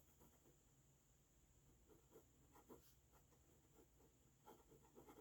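Very faint scratching of an ink pen nib on sketchbook paper, in short irregular strokes as a figure is drawn.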